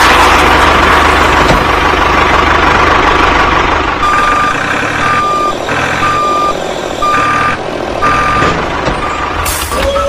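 A loud rushing noise, then a vehicle reversing alarm beeping steadily, about once a second, over a running engine-like background.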